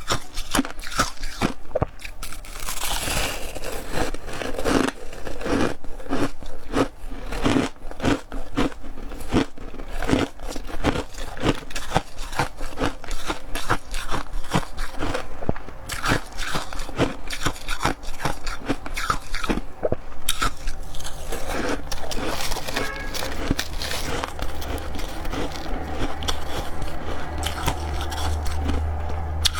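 A person biting and chewing crisp, dry chunks of ice close to the microphone, one crunch after another in quick succession. A low hum joins the crunching in the second half.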